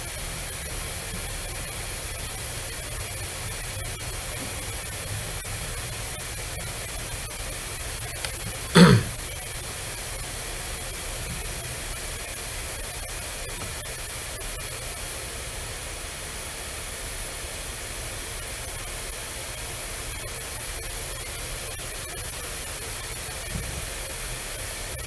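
Steady hiss of the recording's background noise. About nine seconds in there is one short, loud sound.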